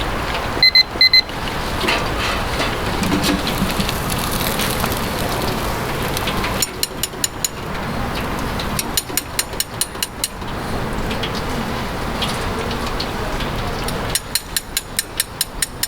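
Steady sizzling of skewers cooking on a grill. Two short beeps sound about a second in, and three quick runs of sharp clicks come later.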